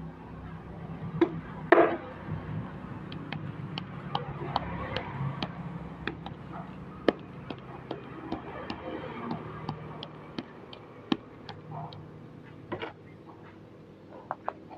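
Light metallic ticks, roughly three a second, from an aluminium moka pot funnel filter basket being handled and tapped while ground coffee is settled in it, with a louder knock near the start and another near the end.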